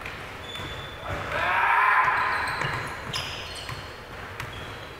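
Basketball game in a gym: the ball bouncing on the hardwood and sneakers squeaking, echoing in the large hall. A louder drawn-out squeal swells around the middle.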